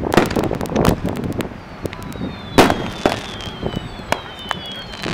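Fireworks going off: a rapid string of bangs and crackles, the biggest bang about two and a half seconds in, with several high whistles gliding slowly downward through the second half.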